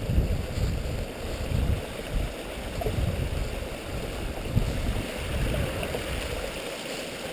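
Steady rush of a nearby stream, with irregular low rumbles on the microphone.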